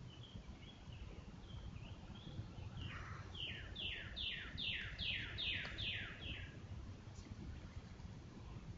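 A bird calling: a few soft chirps, then about three seconds in a loud run of about nine downslurred whistled notes, roughly two and a half a second, that swells and then fades.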